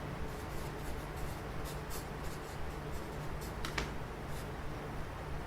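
Pen scratching on paper in short, irregular strokes, writing out a calculation in a notebook, over a steady low hum. A brief high squeak comes about three and a half seconds in.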